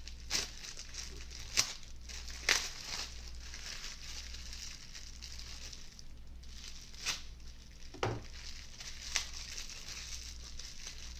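Plastic bubble wrap crinkling and rustling as it is pulled apart by hand, with about half a dozen sharper crackles along the way.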